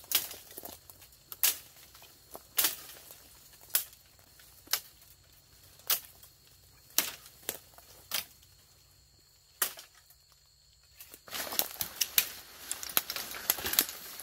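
Footsteps crunching through dry brush, with twigs and branches snapping about once a second. A short lull, then from about eleven seconds in a dense, close crackling and rustling of leaves and branches pushed through.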